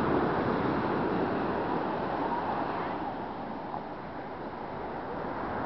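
Ocean surf breaking and washing up on a sandy beach: a steady rush of water.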